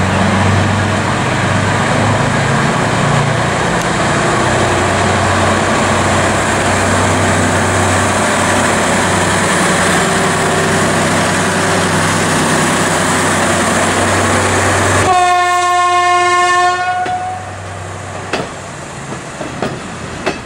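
SM30 diesel shunting locomotive running steadily as it pulls a passenger train past. About 15 seconds in comes one long blast on a locomotive horn, about two seconds long. Then a few wheel clicks over rail joints as the carriages roll away.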